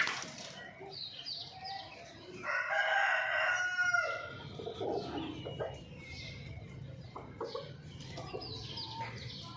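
A rooster crows once, about two and a half seconds in, among chickens clucking and short high chirping calls. A sharp click sounds right at the start.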